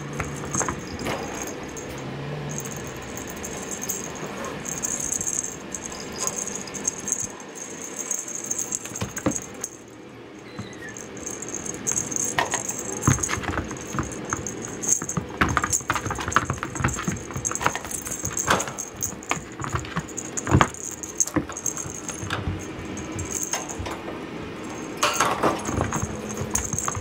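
Cats playing with a cat teaser toy on a wooden floor: irregular light knocks, taps and rattling from paws, landings and the toy, with a few louder knocks in the middle and near the end.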